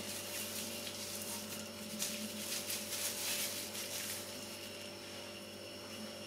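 Faint crinkling of a small plastic piping bag being twisted and pinched in the hands, over a low steady hum.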